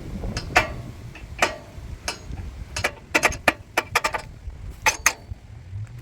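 Gusty wind rumbling on the microphone, with a string of short sharp clicks at irregular spacing, several coming in a quick cluster about three to four seconds in.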